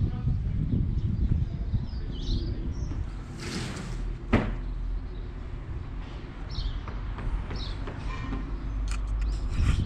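Outdoor garden ambience: wind rumbling on an action camera's microphone, with a few short bird chirps and a single sharp click about four and a half seconds in.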